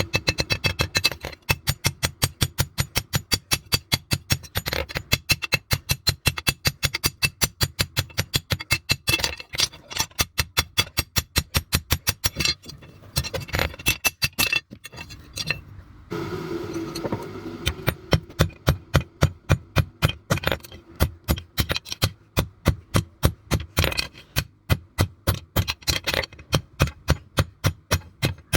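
Hammer blows on steel over an anvil: a rapid, even run of ringing metallic strikes, about four or five a second, with a short break near the middle before the hammering picks up again.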